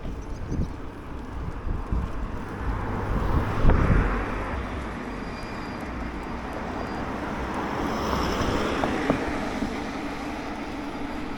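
Riding noise from a moving scooter: wind rumbling on the microphone over a low engine hum. The noise swells twice, about four seconds in and again near nine seconds.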